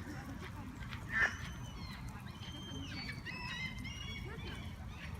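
A flock of geese with goslings: one short goose honk about a second in, followed by about three seconds of thin, high gosling peeps, over a steady low rumble.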